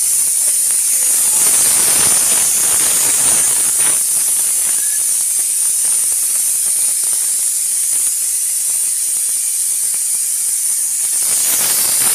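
Steady, loud hiss with a fine crackling texture, strongest high up and unchanging throughout.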